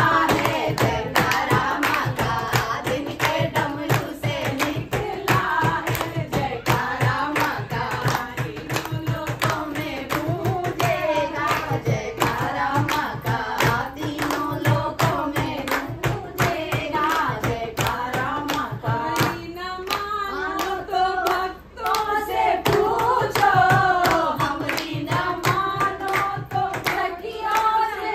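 A group of women singing together and keeping time with steady rhythmic hand clapping, with a brief break about three-quarters of the way through.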